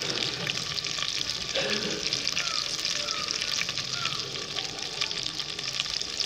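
Marinated chicken pieces deep-frying in hot oil, with a steady crackling sizzle.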